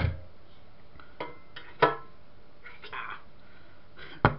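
Sheet-metal chassis of a small HDTV switcher knocking and clanking as it is handled and set down: a sharp knock at the start, a few lighter clinks with a short metallic ring in the middle, and another sharp knock near the end.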